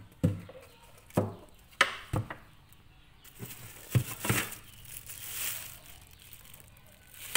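Several sharp knocks and taps of handling in the first four seconds or so, then clear plastic wrapping crinkling as it is picked up and handled.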